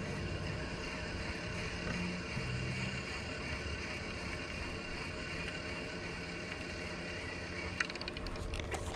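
Fishing kayak's electric trolling motor running steadily, a low hum with a thin high whine, as the boat moves along the bank. A few light clicks near the end.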